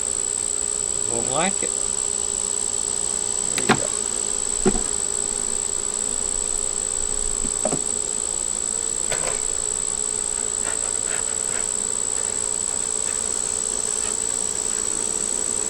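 Honey bees buzzing steadily around an opened hive, a dense hum with a few short sharp knocks about four and five seconds in.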